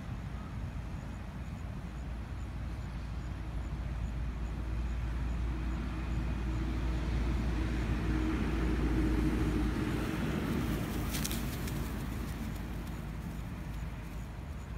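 A motor vehicle passing: a low engine rumble that grows louder to a peak a little past halfway and then fades, with a short burst of clicks about two-thirds of the way through.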